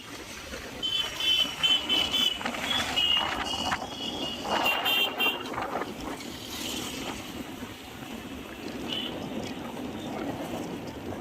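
Road traffic noise with wind buffeting the microphone, and a run of short, high vehicle horn beeps through the first five seconds.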